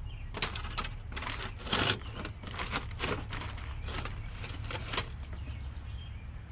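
Heavy-duty aluminium foil crinkling and crackling in a run of irregular short crackles as the foil-wrapped smoked pork butt is opened. The crackles die away about five seconds in.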